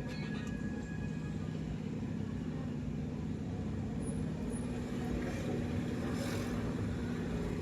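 Road traffic at an intersection: a low steady engine hum, with one vehicle passing about six seconds in, its rush swelling and fading.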